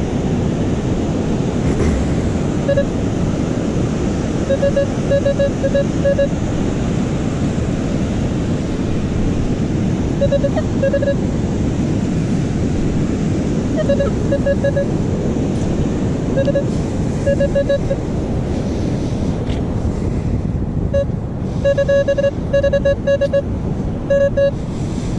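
Metal detector giving short, repeated mid-pitched beeps in bursts as the coil is swept over a buried coin reading 13 on the display, a nickel. Under it, a steady rush of surf and wind.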